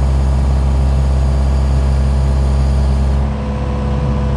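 Engine running steadily at high speed; about three seconds in it drops back and settles into a lower, rougher run with a steady whine over it.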